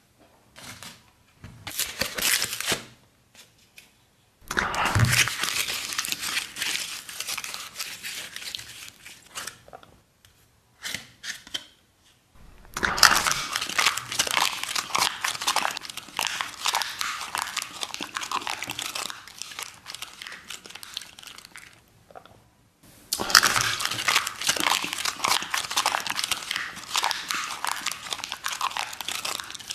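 Crinkling and tearing of thin packaging as a jar of loose face powder is unwrapped and its seal torn off. It comes in several spells of dense crackle separated by short pauses.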